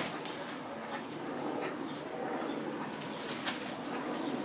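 Low bird calls going on throughout, with a brief rustle about three and a half seconds in.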